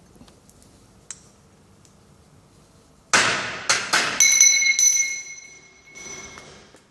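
Hammer striking steel: about six quick blows starting about three seconds in, each leaving a high metallic ring that dies away.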